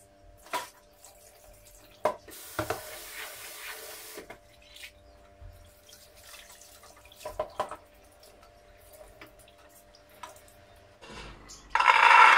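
Chickpeas being rinsed in a glass bowl at a stainless-steel kitchen sink: the tap runs for about two seconds, with clinks of the bowl on and off. Near the end, the wet chickpeas are tipped from the bowl into an aluminium pressure cooker pot in one loud, rattling pour.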